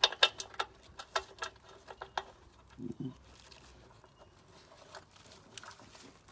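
Quick irregular run of light metallic clicks and clinks, as loose gearbox bolts are handled, dying away after about two seconds to a few faint ticks.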